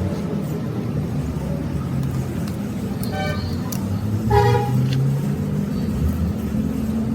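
Road traffic: a vehicle engine running steadily, with two short horn honks about three and four and a half seconds in.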